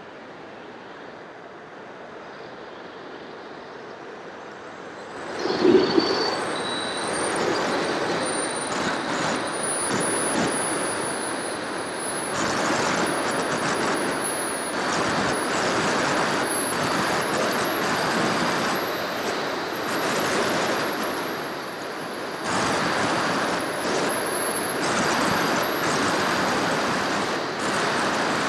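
Wind rushing over an FPV model aircraft's onboard camera, with a thin high whine that slowly rises in pitch. About five seconds in the noise jumps suddenly louder and stays loud.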